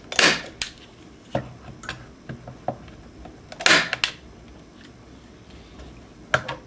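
Hand staple gun snapping twice, about three and a half seconds apart, driving staples into the wooden gussets of a wing rib in its jig. Lighter clicks and taps of the tool being handled come between the shots and near the end.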